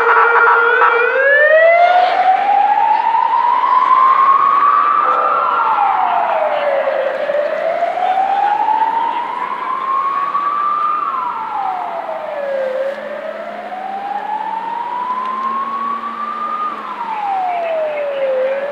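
Emergency vehicle siren wailing: a brief steady tone, then a pitch that rises slowly for about four seconds and falls back quickly, three times over. It grows slightly fainter toward the end.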